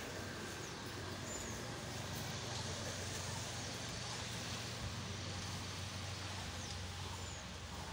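Outdoor background ambience: a steady low hum and hiss, with a few short, high bird chirps scattered through it.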